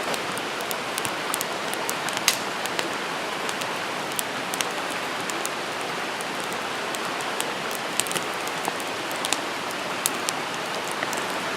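Campfire crackling: a steady hiss with frequent sharp pops and snaps scattered through it.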